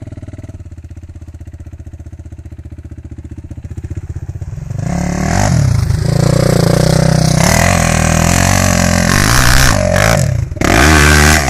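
Suzuki LTR 450 quad's single-cylinder four-stroke engine running low and steady, then revved hard from about five seconds in as the quad climbs a steep sand slope, the throttle rising and falling. It drops off briefly near the end, then comes back at full throttle.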